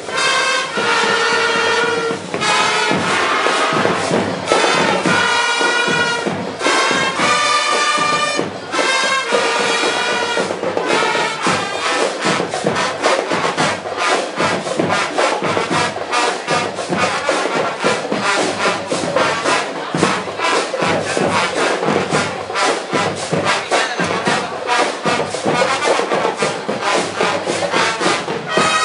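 Marching band playing: trumpets and trombones sound long held chords separated by short breaks, then about eleven seconds in the drums come in with a dense, fast beat under the brass.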